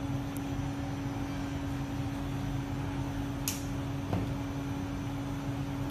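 Steady machine hum with one constant tone, and a single short click about three and a half seconds in.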